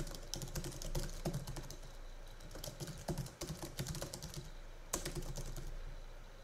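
Typing on a computer keyboard: a quick, steady run of keystrokes that thins out and stops a little before the end.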